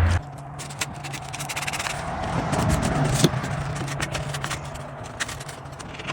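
Folded 150-grit sandpaper worked back and forth inside a crack in a wooden oar: a rapid, uneven scraping over a faint steady low hum.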